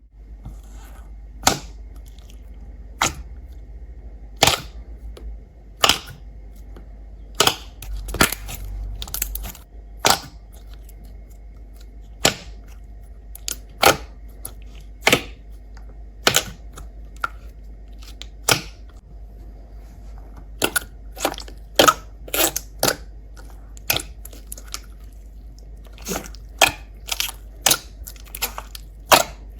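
Slime being pressed and worked, giving sharp crackling pops about once every second or so, coming closer together near the end, over a steady low hum.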